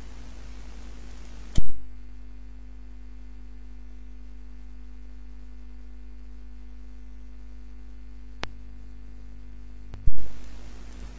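Steady electrical hum and hiss of a recording with no speech, broken by two loud sharp clicks, about a second and a half in and near the end, with a fainter click shortly before the second. Between the two loud clicks the hiss drops away and only the hum remains.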